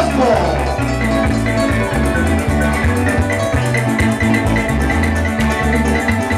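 Joropo llanero music played on plucked strings over a pulsing bass line, with maracas shaking.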